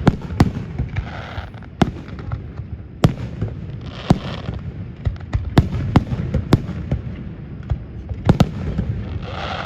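Fireworks display: about a dozen sharp bangs of aerial shells bursting at irregular intervals, over a continuous low rumble of further explosions.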